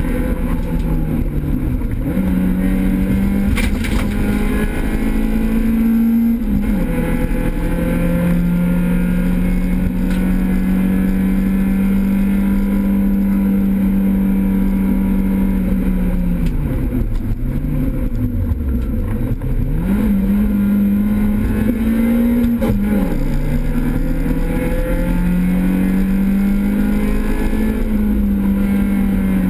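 Renault Clio 16S rally car's 16-valve four-cylinder engine at hard throttle, heard from inside the cabin, pulling through the gears. Revs climb and drop sharply at an upshift about six seconds in, hold high and steady, fall away with a lift and downshifts a little past halfway, then climb again through two more upshifts.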